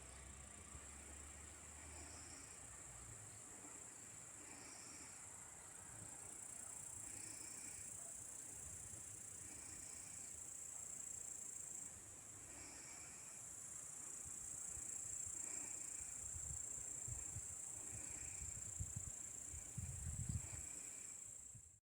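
Insects chirring steadily at a high pitch, with a short, fainter call repeating about once a second. Low rumbles come in over the last few seconds.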